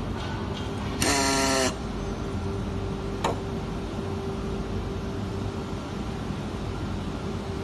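Handheld pneumatic screwdriver running once for under a second, about a second in: a hissing whine from the air motor. A sharp click follows a couple of seconds later, over a steady workshop hum.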